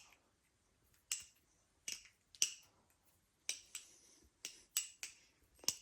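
Armed Shark Glidr balisong being flipped: its handles clack sharply against each other and the tang, about nine irregularly spaced clicks.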